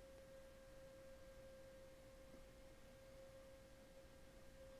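Near silence with a faint, steady single-pitched whine that holds unchanged throughout.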